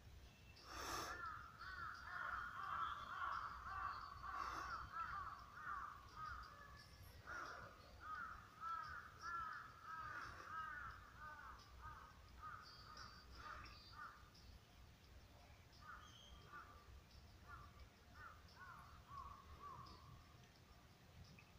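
Faint birds calling in a dense, overlapping series of short arching calls, thinning out in the second half and fading away near the end.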